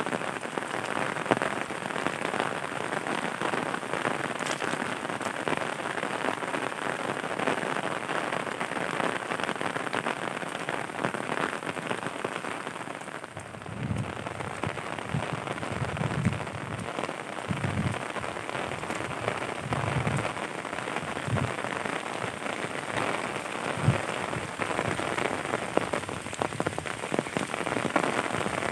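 Heavy rain falling steadily, a dense even hiss of drops. In the second half a few short low thumps sound through it.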